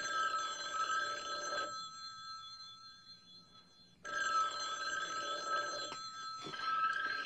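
Telephone bell ringing: a ring of just under two seconds, a pause of about two seconds, a second ring, then ringing again near the end.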